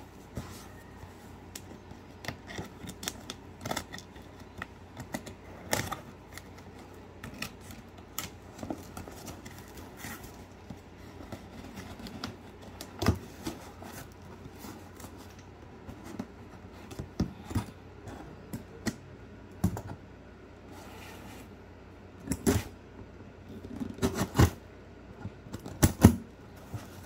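Scissors cutting packing tape on a cardboard shipping box, and the cardboard flap being pulled and torn open: irregular snips, crackles and scrapes. The sharpest and loudest come about halfway through and in the last few seconds.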